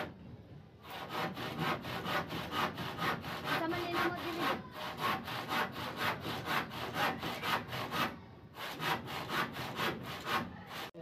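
Handsaw cutting through a wooden plank in steady back-and-forth strokes, about three a second, with a short pause about three-quarters of the way through before the sawing resumes.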